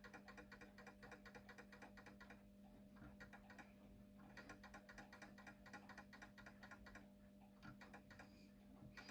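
Napoleon mantle clock's escapement ticking faintly and rapidly with the pendulum off, while the clock is being put in beat; the ticking pauses briefly a few times. A steady low hum runs underneath.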